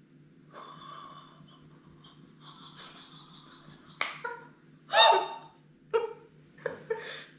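A woman sipping liquid off a spoon with faint slurping, then a sharp click and a few short, breathy vocal noises as she tastes it. The loudest comes about five seconds in.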